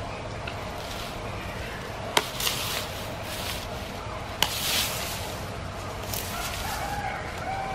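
Giant panda biting and chewing bamboo: two sharp snaps, about two and four and a half seconds in, each followed by a second or so of crunching.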